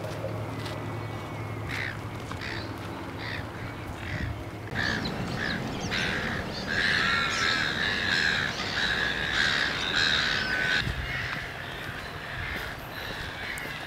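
Birds calling in coastal bushland: a run of single harsh calls about twice a second, then a loud chorus of many birds calling over each other for about four seconds before it thins out again.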